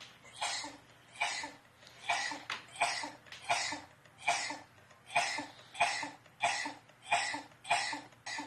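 A man's sneezes played back from a video, repeated in quick succession: about a dozen short, evenly spaced sneezes, roughly one every three-quarters of a second.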